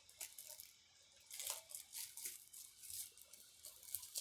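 Packaging being handled and unwrapped: quiet, uneven crinkling and rustling with scattered sharp crackles, busier from about a second in.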